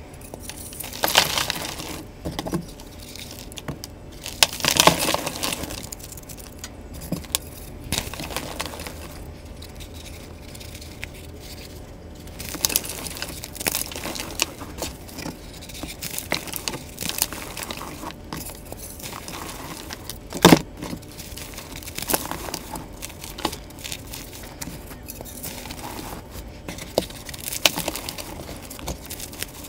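Reformed gym chalk and cornstarch blocks crunching as a hand squeezes them: the hard shell cracks and the powdery inside crumbles, in irregular crunches with a sharp snap about twenty seconds in.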